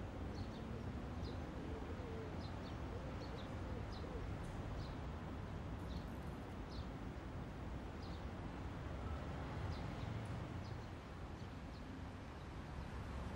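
Outdoor city ambience: a steady low rumble of distant traffic with small birds chirping, short high chirps every second or so.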